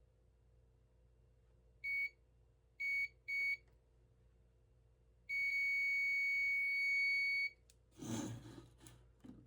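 Digital multimeter on its continuity setting beeping as a probe touches a cord wire. Three short beeps are followed by one steady beep of about two seconds: the wire is connected to the plug prong under test. A brief rustle of handling comes near the end.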